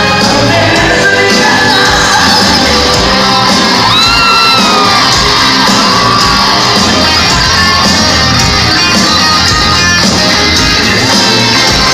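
Rock band playing loudly, with sung and shouted vocals over guitars and drums. A high note slides up and then back down about four seconds in.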